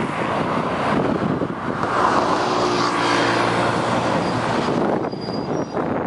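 Articulated city bus driving past close by, its engine hum and tyre noise over steady road traffic noise.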